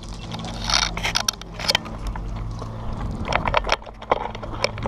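Close handling and gear noise on a body-worn action camera: irregular clicks, knocks and scrapes over a steady low hum.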